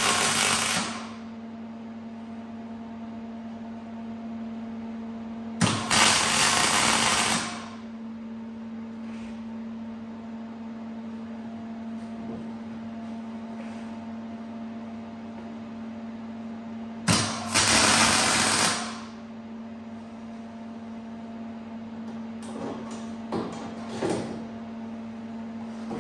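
Electric arc welder laying three short welds on the brake booster's mounting bolts, each a crackling buzz of about two seconds: one at the start, one about six seconds in and one about seventeen seconds in.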